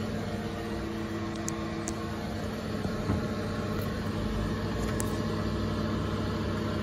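Steady hum from the powered-up Haas VF-0E CNC mill's electrical cabinet, with a light knock about three seconds in.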